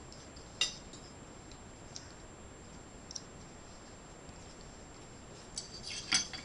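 A fork clicking against a bowl a few times: one sharp click about half a second in, a couple of faint ones in the middle, and a quick cluster of clicks near the end.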